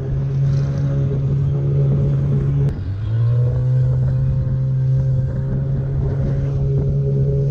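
Outboard motor pushing an inflatable boat at speed, a loud steady engine note. About three seconds in it breaks off and climbs quickly back up to the same pitch.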